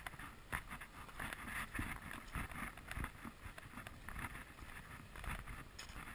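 Footsteps on gravel and mud, a knock about every half second at a walking pace, with wind rumbling on the microphone.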